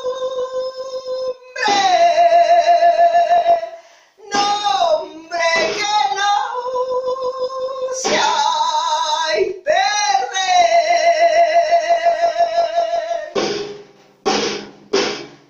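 A woman singing alone in long, held notes with a wide vibrato, sliding up and down between pitches, with short breaths between phrases.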